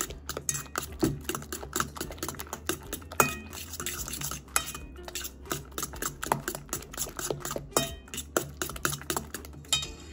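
A metal fork beating a wet banana-and-egg batter in a metal mixing bowl: rapid, irregular, noisy clinks and scrapes of the fork against the bowl, stopping near the end.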